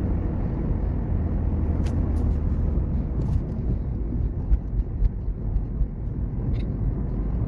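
Steady low rumble of road and engine noise inside a moving car's cabin at highway speed, with a few faint clicks.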